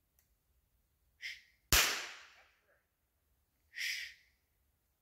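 A single gunshot a little under two seconds in, sharp, with an echo that fades over about a second. Brief hissy noises come just before it and again near the end.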